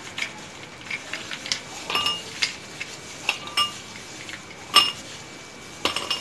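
Ice cubes dropped one at a time into a stemmed glass, clinking against the glass and each other, each clink leaving a brief ringing tone. The loudest clink comes near the end.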